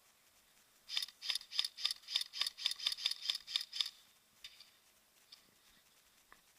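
Airsoft gun fired in quick semi-automatic shots: about a dozen sharp snaps, roughly four a second, then a few fainter single shots near the end.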